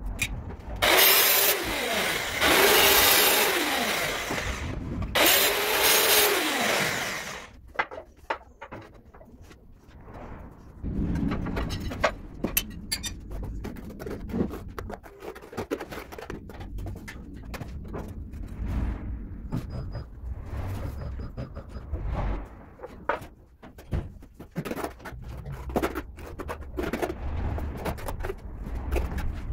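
A trowel scraping and spreading tile mortar over a concrete floor in short, irregular strokes. Near the start there is a loud machine noise, rising and falling in pitch, for about six seconds.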